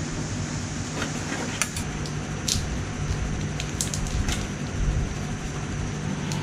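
Switch wire being pulled through the firewall grommet with a guide wire: light handling noise with a few sharp clicks and ticks, over a steady low hum.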